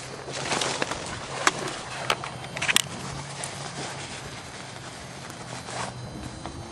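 Footsteps scuffing on a gritty dirt floor, with several sharp clicks and taps in the first three seconds and one more near the end, over a faint low hum.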